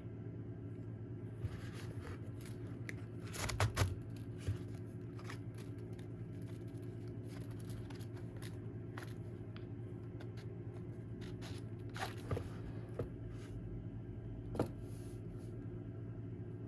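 Hands handling a multitool kit and its parts: a few scattered clicks and short scrapes, the busiest cluster a few seconds in, over a steady low hum.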